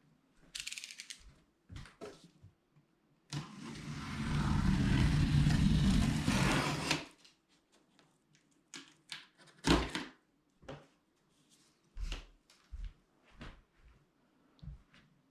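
Unboxing sounds: scattered clicks and knocks of a cardboard box and packaging being handled, with one loud scraping, rustling noise lasting about four seconds, starting about three seconds in.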